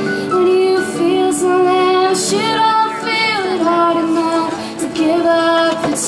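Live acoustic band music: a woman singing long held notes that slide between pitches, over strummed acoustic guitar and a small plucked string instrument.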